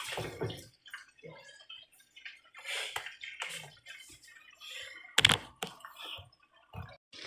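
Oil shallow-frying in a pot, giving scattered irregular pops and crackles, with one sharp knock about five seconds in.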